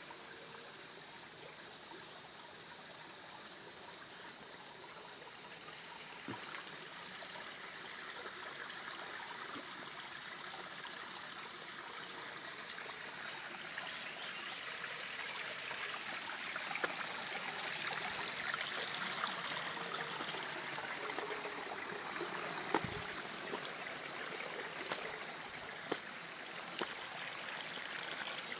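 Shallow rocky forest creek running, a steady rush and trickle of water that grows a little louder after about six seconds. A few short sharp knocks stand out now and then.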